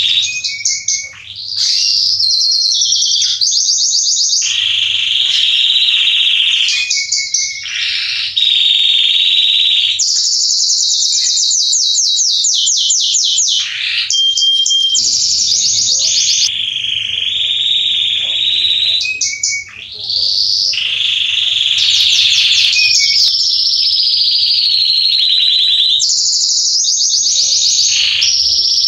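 Male Belgian (domestic) canary singing an almost unbroken song of rapid trills and rolling phrases, pausing only briefly a few times.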